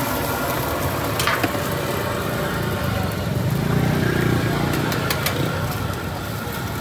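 Busy roadside stall noise: a steady din with an engine rumble swelling about three to five seconds in, over which a metal spatula clicks against a flat steel griddle as an egg is fried and turned.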